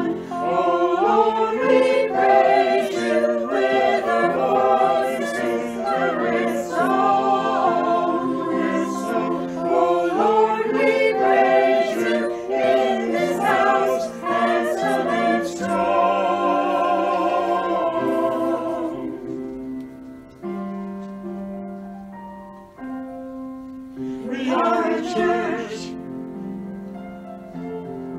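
Church choir singing a hymn, many voices with vibrato. Past the middle it drops to a softer passage of held notes, and the voices come back strongly a few seconds before the end.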